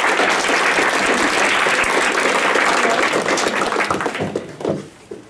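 Audience applauding, dense steady clapping that thins out and dies away about four to five seconds in.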